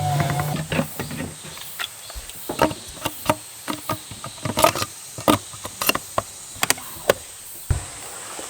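A dozen or so sharp, irregular clicks and light knocks, like gear being handled, with one low thump near the end.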